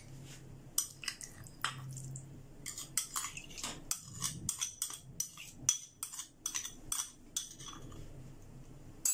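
A metal spoon scraping and clinking against a glass bowl as cooked sago pearls are spooned out into a pot: a run of quick, light clinks and scrapes, thickest in the middle.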